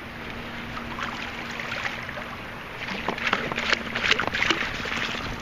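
Wet sand being scooped and sifted through a metal-detecting scoop, with sloshing and gritty rattling that grows busier about three seconds in as the scoop is shaken.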